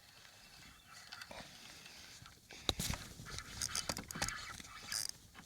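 Scattered clicks, knocks and splashy patter of a hooked speckled trout being reeled in and handled beside a kayak. It starts with a sharp click about halfway through, after a quieter stretch.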